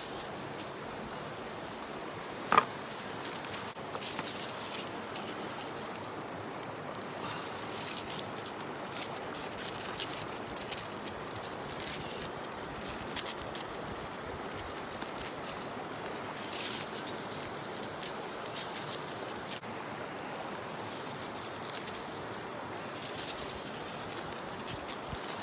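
Steady rush of river water with scattered light clicks and crackles, and one sharp snap about two and a half seconds in.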